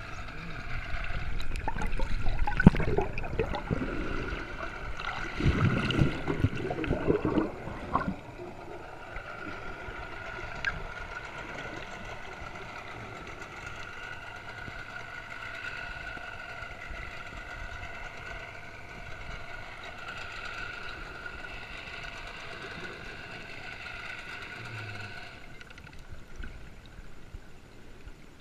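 Water splashing and sloshing for the first several seconds, then a steady whining drone of a boat engine that drops away near the end.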